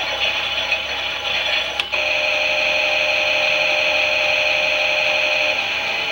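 Small electric motor of a Klein toy Miele washing machine running the drum. There is a click about two seconds in, after which it runs as a steadier, slightly louder whine.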